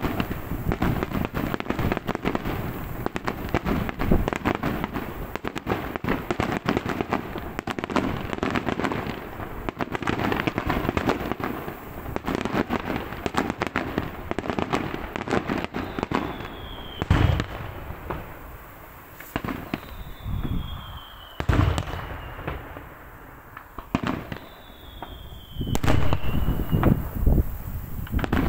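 Daytime fireworks barrage: a dense, rolling run of rapid firecracker bangs, then single heavy bangs a couple of seconds apart, each preceded by a short whistle falling in pitch, and a fresh burst of rapid bangs near the end.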